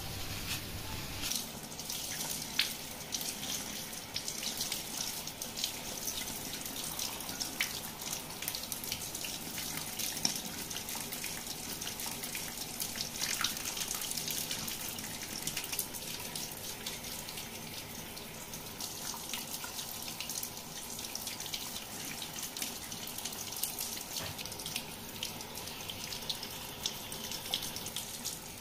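Handheld shower sprayer running water over wet hair and splashing into a salon shampoo basin, a steady hiss, while gloved fingers work through the hair.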